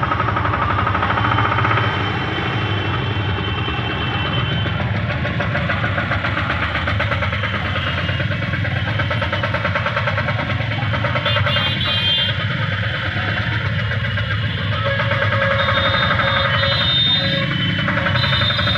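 Vehicle engine running steadily, heard from inside its cab, in dense city traffic with horns sounding now and then.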